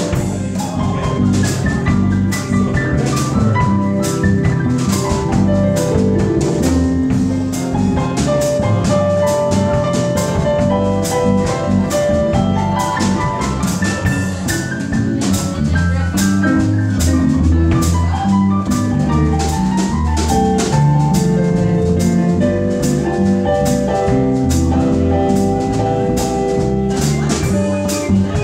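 Live jazz combo playing: keyboard, upright bass and drum kit, with steady cymbal strokes over a moving melodic line and bass line.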